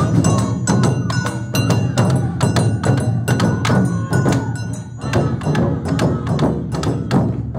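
Awa Odori festival band: large taiko drums beaten in a fast, even marching beat, with bright ringing strikes over them.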